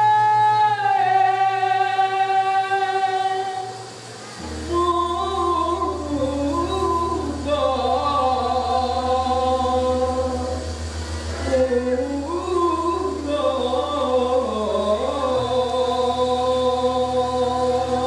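A man singing long held notes, stepping down to a lower note about a second in. From about four and a half seconds in, several voices sing together over a steady low drone.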